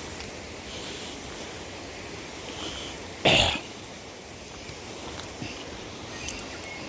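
A person coughs once, a short sharp burst a little over three seconds in, over a steady faint outdoor hiss.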